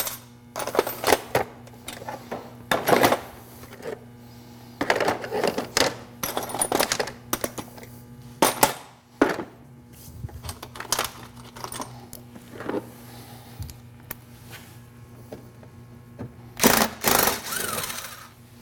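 Cordless screwdriver backing out the screws of a car's plastic fender liner in short runs, with clicks and clatter of the fasteners and plastic liner being handled; the longest run of the driver comes near the end. A steady low hum sits underneath.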